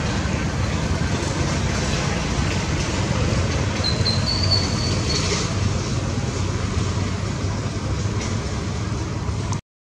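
Steady low rumbling background noise with a brief high, thin tone about four seconds in; the sound cuts out completely just before the end.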